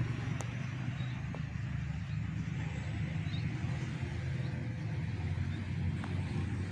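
Steady low engine rumble of heavy trucks passing on a main road.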